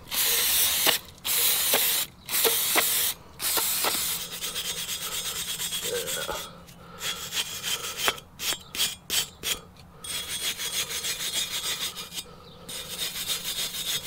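Several loud hissing bursts of aerosol brake cleaner in the first four seconds, then a hand brush scrubbing in quick strokes, with short pauses, on the cast-iron exhaust manifold flange of a Ford V10 Triton. The flange is being cleaned of old gasket residue before a new gasket goes on.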